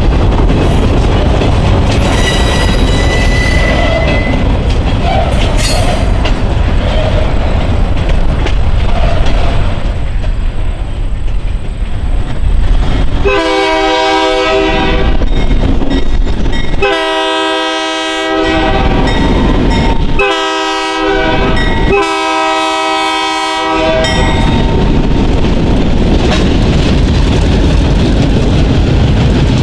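Diesel locomotive horn sounding the grade-crossing signal: long, long, short, long. Under and around it, the train's rumble and its wheels clattering on the track.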